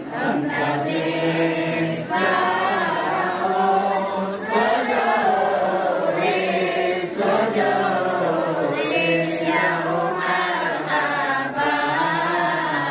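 A group of men's voices chanting a devotional song together in long, held phrases, with short breaks between phrases.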